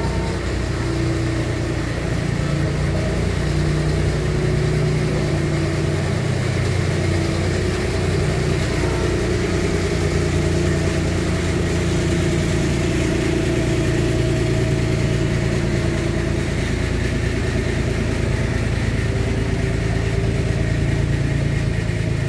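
An engine running steadily, its hum drifting slightly up and down in pitch.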